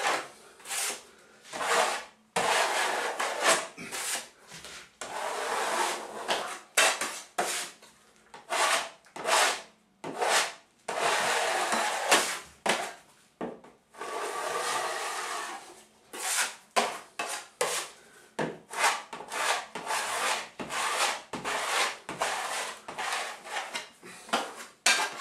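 Steel taping knife scraping over crack repair tape and joint compound on a plasterboard ceiling, pressing the tape in with repeated strokes. Several long sweeps of about a second each come first, then shorter, quicker scrapes of about two a second from about two-thirds of the way through.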